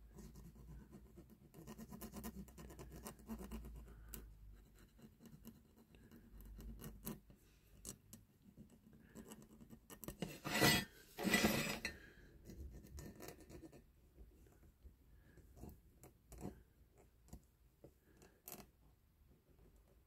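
Wooden cocktail stick rubbing masking tape down flat onto a diecast metal toy body: faint scratching and rubbing, with two louder scrapes about ten seconds in.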